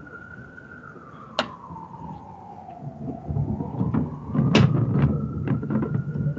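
A siren wailing, its pitch sliding slowly down and back up, with a few sharp knocks, the loudest about four and a half seconds in.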